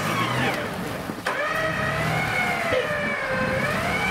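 Mitsubishi Pajero Sport's engine revving hard under load in deep snow, its pitch wavering up and down as the revs rise and fall, with a brief break a little over a second in.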